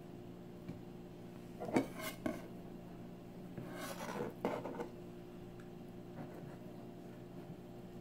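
Fish and knife handled on a wooden cutting board: a few sharp knocks about two seconds in, then a short scraping rub around four seconds in, over a steady low hum.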